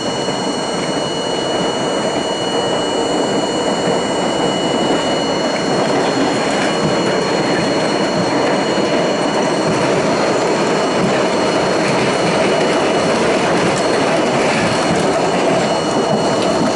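R42 subway car running on elevated steel track, heard from inside the car: a steady noise of wheels on rails that grows louder over the first six seconds or so, then holds steady.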